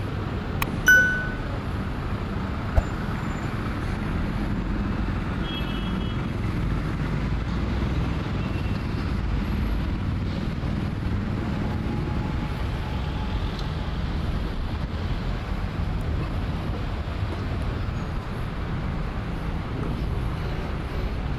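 Steady rumble of city road traffic passing around a square. About a second in, a short bright ringing clink stands out above it, and a sharp click follows a couple of seconds later.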